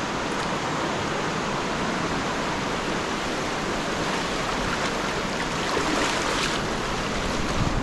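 Steady rush of river water over rocky rapids.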